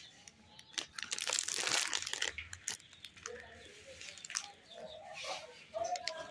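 Plastic and cellophane candy wrappers crinkling as they are handled, a dense crackly stretch about a second in, then scattered lighter rustles and clicks.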